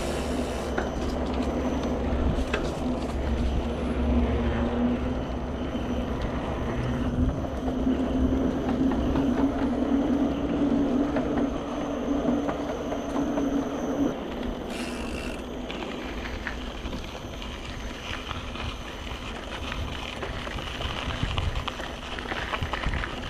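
Mountain bike riding over gravel and boardwalk: steady tyre rumble and rattle, with a low hum through roughly the first half and wind noise on the microphone.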